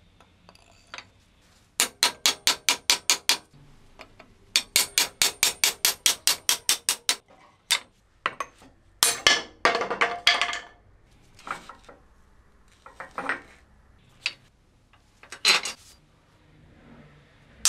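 Rapid hammer blows, about six a second, in two runs of a few seconds each, knocking the broken wooden handle out of an old ball peen hammer's rusty head as it rests on the vise jaws. After them come scattered single clanks and scraping of the steel head against the vise.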